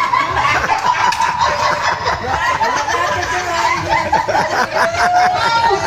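People laughing in quick, cackling bursts over overlapping chatter.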